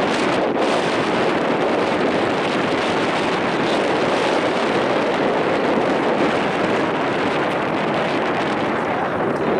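Steady wind noise rushing over the microphone, even and unbroken throughout.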